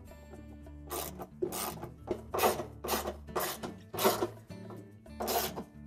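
Socket and ratchet tightening the washer's outer tub bolts: a run of short rasping ratchet strokes, about two a second, starting about a second in.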